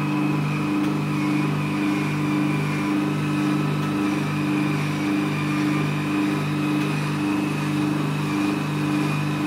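Velashape-type vacuum body contouring machine running during treatment: a steady mechanical hum that swells and dips evenly, about one and a half times a second.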